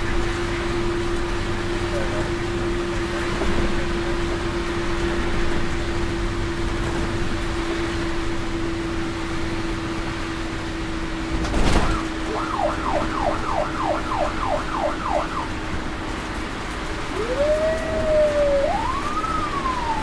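Ambulance siren over road noise. A steady low tone runs underneath; a sharp thump comes near the middle. Then the siren yelps in rapid falling sweeps, about three a second, for a few seconds, and near the end it begins a slow wail that rises and then falls.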